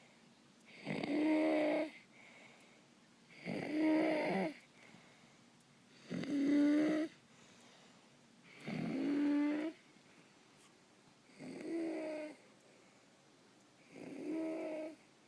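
Stridor in a sleeping nine-year-old boy: a loud, deep-pitched, noisy breath sound, six breaths about two and a half seconds apart, the last two a little quieter. It is the sound of air forced through a narrowed upper airway.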